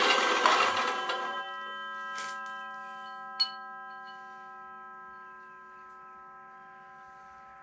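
An Evolution metal-cutting chop saw running down after a cut in steel, dying away within the first second and a half. It leaves a clear metallic ringing of several tones at once that fades slowly, with a soft click about two seconds in and a sharp click about three and a half seconds in.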